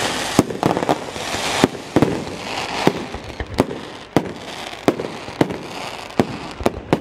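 Aerial fireworks going off: about a dozen sharp bangs at irregular intervals, with crackling and hissing from the rocket trails and bursting stars between them.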